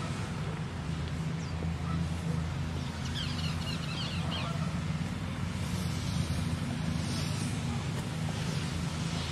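Outdoor ambience: a steady low hum under a noisy background, with a brief burst of small birds chirping about three seconds in.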